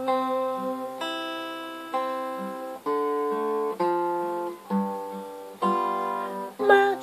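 Instrumental music: acoustic guitar chords struck about once a second, each left to ring and fade before the next.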